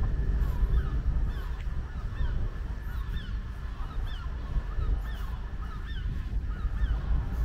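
A bird calling over and over in a quick series of short, hooked, honk-like calls, about two a second, over a steady low rumble.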